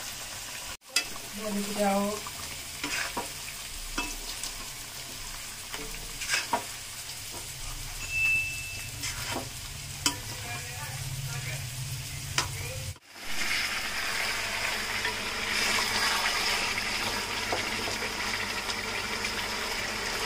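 Food sizzling in a hot pan while a spoon stirs and scrapes through it, with scattered clicks of the spoon on the pan. About thirteen seconds in the sound breaks off and turns into a louder, steady sizzle of frying.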